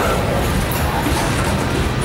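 Loaded coal train rolling past: a loud, steady rumble of steel wheels on rail.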